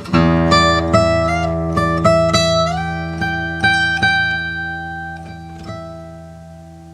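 OM-size steel-string acoustic guitar with Brazilian rosewood back and sides and a torrefied Adirondack spruce top, played fingerstyle: a strummed chord, then a quick run of single plucked notes with a couple of slides up in pitch over low strings that ring on. The playing stops about four seconds in and the notes are left ringing and fading away.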